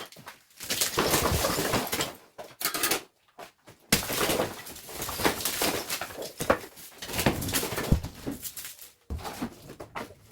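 Hand repair work on an old wall: stretches of rough scraping with sharp knocks mixed in. It comes in two main runs separated by short pauses.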